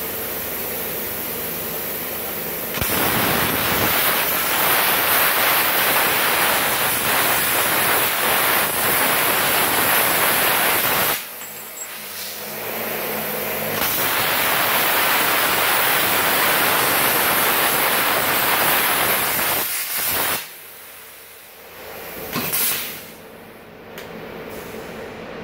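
Multipro CUT 120 plasma cutter cutting 1 cm steel plate: a loud, even hiss of the plasma arc and air jet starting about three seconds in, breaking off near the middle, running again for about six seconds, then one short burst near the end.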